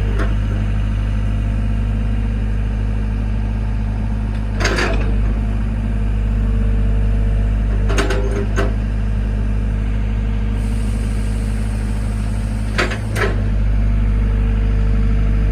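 Excavator's diesel engine running steadily with a constant low drone, broken by about five sharp metallic knocks spread through it.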